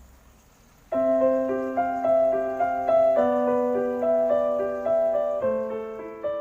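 Background music: a gentle piano melody that comes in about a second in, after a fading rain-like hiss.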